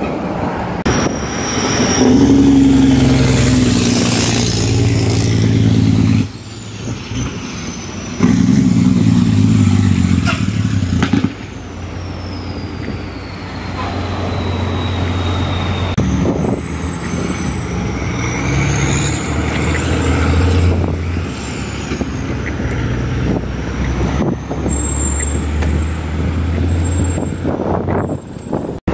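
Heavy diesel trucks' jake brakes (compression-release engine brakes) in several back-to-back clips, each a loud, low, rapid rattle that stops at an abrupt cut. A faint high whine glides down and back up behind the later clips.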